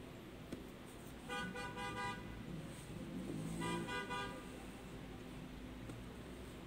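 A vehicle horn sounding twice, two short toots a couple of seconds apart, faint over low room noise.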